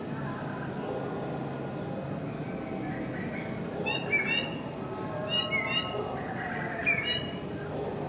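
Harsh, screechy calls of a red lory, in three bursts about four, five and a half and seven seconds in. Before them, a small bird gives thin, high, falling chirps about twice a second.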